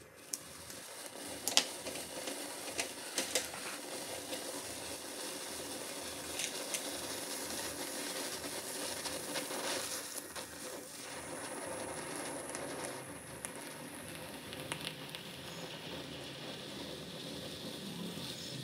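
Hand-held sparkler (phuljhari) burning, giving a steady crackling fizz. A few sharp clicks come in the first few seconds.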